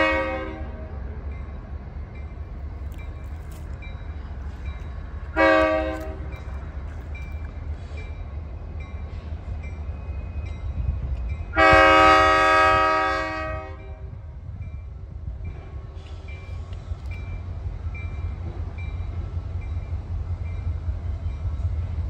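An approaching train's air horn sounds three blasts for a grade crossing: two short ones about five seconds apart, then a longer one of about two seconds, over a steady low rumble. A faint crossing bell dings about twice a second.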